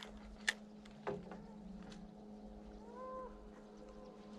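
Faint outdoor quiet over a steady low hum, broken by a sharp click about half a second in and a short arching animal call about three seconds in.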